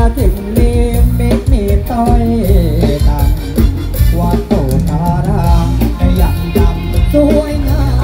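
Loud band music with a singer, played through a Thai rot hae sound truck's large loudspeaker stack, over a heavy bass beat.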